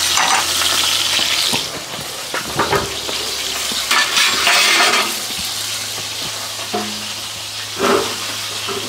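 Top round roast searing in hot lard in a cast iron pan: steady sizzling and spitting of the fat, with a few short knocks.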